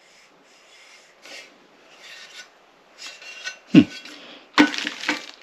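Hands handling RC kit parts and packaging: soft rubbing and scraping as the anodised aluminium chassis pan is moved over the box, a sharp knock a little under four seconds in, then louder rustling near the end.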